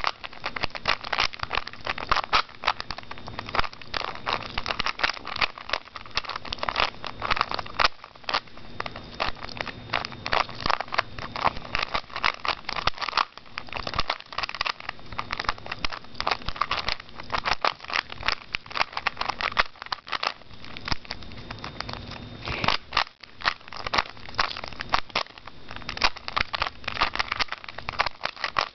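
Rubik's Cube being turned rapidly in the hands during a speed solve: a dense, continuous run of plastic clicks and rattles as the cube's layers snap around.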